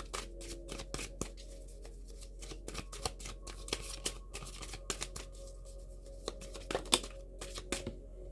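A deck of tarot cards being shuffled by hand: a run of quick, irregular card flicks and slaps, with one louder snap about seven seconds in.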